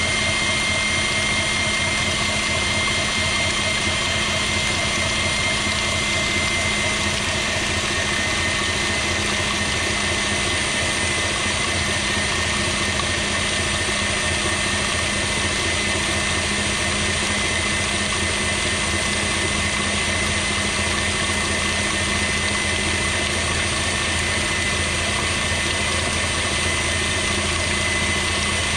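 KitchenAid Pro Line stand mixer running steadily on medium speed with an even motor whine, its whisk beating sugar, oil and eggs in the steel bowl.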